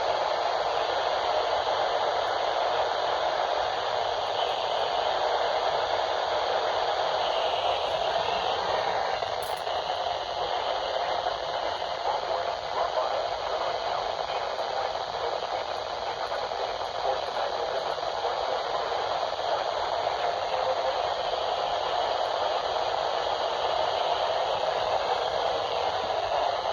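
Steady static hiss from a NOAA weather radio receiver between broadcast messages.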